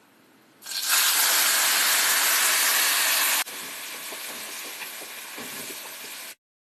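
Garlic, onion, ginger and tomato puree sizzling in hot cooking oil, starting loud about a second in. Partway through, the sizzle drops suddenly to a quieter steady level, then cuts off near the end.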